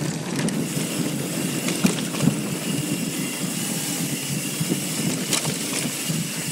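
Mountain bike rolling down a dirt trail: a steady rushing noise of tyres and air with a few sharp knocks and rattles, the loudest about two seconds in.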